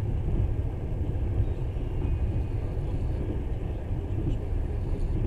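Passenger train running at speed: a steady low rumble of wheels on rails, heard from inside the carriage.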